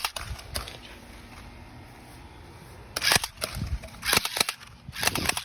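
Airsoft guns firing, a spring shotgun and a pistol. One or two sharp snaps come at the start, then about three seconds in a rapid string of some ten shots follows as the shotgun is fired as fast as it can be worked.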